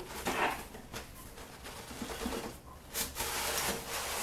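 Cardboard boxes rubbing and scraping against each other as a snug inner box is worked up and out of its outer carton. There is a sharp knock about three seconds in, followed by steady scraping.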